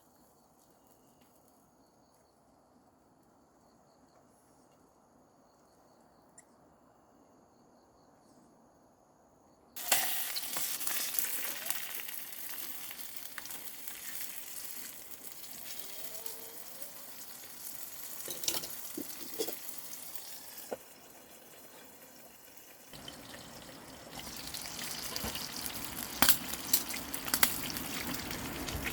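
Faint high insect chirping, then about ten seconds in food suddenly starts sizzling loudly in a hot pan. The frying eases for a moment and then grows louder again, with a few sharp pops or clicks near the end.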